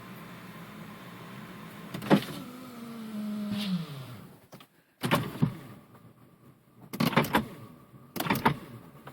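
Power window motor in a 1997 Saturn SL2 door running with a low hum, then a loud click about two seconds in; the motor's pitch sags and it stalls about four seconds in. Several bursts of sharp clicks and knocks follow as the switch is worked again. The slow, stalling window is what the owner takes for a bad regulator or a stuck track, a known issue on these cars.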